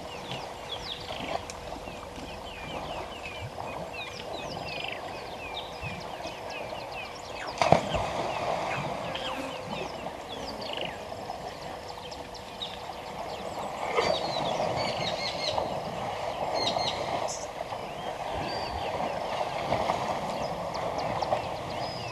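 Elephants sloshing and splashing in a waterhole, with a sharp knock or splash about 8 seconds in and another about 14 seconds in. Birds chirp rapidly over it, most busily in the first half.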